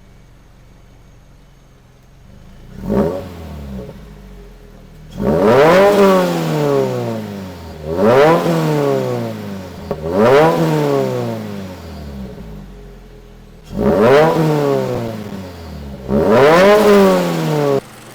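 Turbocharged Subaru BRZ's 2.4-litre flat-four idling, then blipped once briefly and revved hard five times. Each rev climbs quickly in pitch and falls back to idle.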